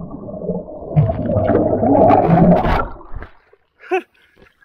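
Muffled underwater rush of churning water and bubbles just after a jump into a spring, heard from below the surface with a low rumbling hum; it stops abruptly about three seconds in. A short yell follows as the swimmer surfaces, about four seconds in.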